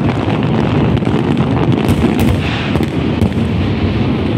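Fireworks display: aerial shells bursting in a dense, unbroken string of bangs and crackles.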